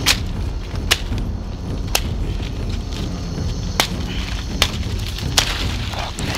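About six sharp whacks at uneven spacing, over a low steady background rumble.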